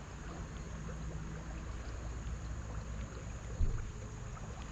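Low wind rumble on the microphone over the steady wash of the river, with one dull thump a little past halfway.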